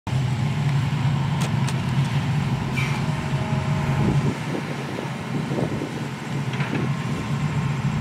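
Hitachi EX200 excavator's diesel engine running steadily under working load, its low hum heavier for the first four seconds and then easing, with a few sharp clanks.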